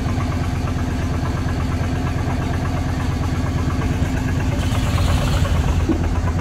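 A wooden fishing boat's engine running steadily at idle. About five seconds in it gets a little louder, with a brief rushing hiss.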